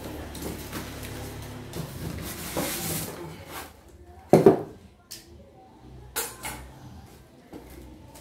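A cardboard shipping box being unpacked: foam packing and plastic wrapping rustle and scrape as they are lifted out, with one loud thump about four seconds in and a few shorter knocks after it.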